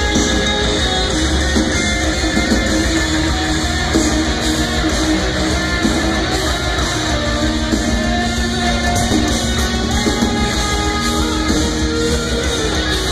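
Melodic death metal band playing live: distorted electric guitars holding long, shifting chords over a drum kit, heard loud from within the audience.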